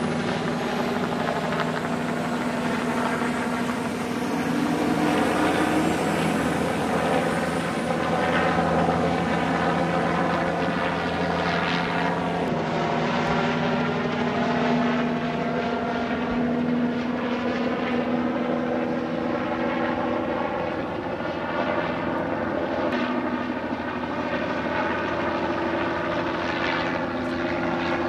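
Sheriff's helicopter circling low overhead: steady rotor chop and engine whine, swelling and easing in loudness as it passes, its pitch sliding slightly now and then.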